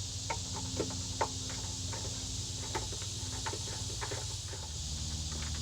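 Scattered light clicks and taps, about one or two a second, as plastic feeder parts are handled and fitted onto a plastic bucket, over a steady low hum.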